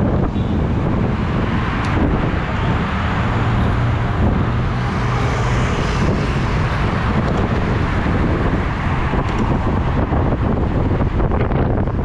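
Steady wind rushing over a bicycle camera's microphone while riding, with road traffic beneath it.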